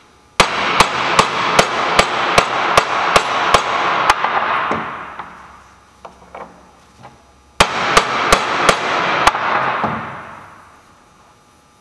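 Hammer striking a metal driver to drive the oil seal into a Jaguar XJ6 Series II IRS output shaft housing: a quick run of about ten blows, about two and a half a second, with metallic ringing between them. After a short pause with a few light taps, about five more blows follow, ringing away afterward.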